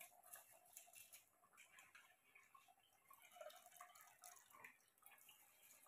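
Near silence: room tone with faint, irregular small ticks and drip-like pops.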